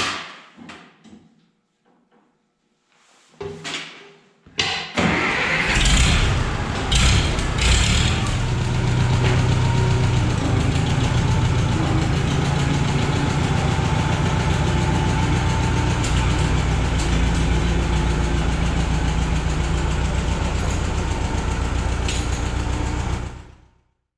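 A few knocks and clunks as a man climbs onto a Case 430 tractor by its step. About five seconds in, the tractor's four-cylinder engine starts and runs steadily, then fades out near the end.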